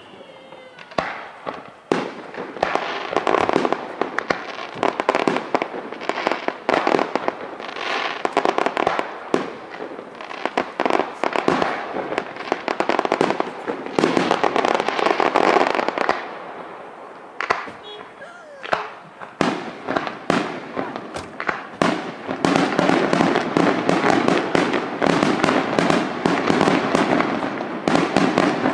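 Aerial fireworks display: shells bursting with sharp bangs and dense rapid crackling in volleys. There is a thinner stretch of scattered bangs about two thirds of the way through, and the crackle builds up again toward the end.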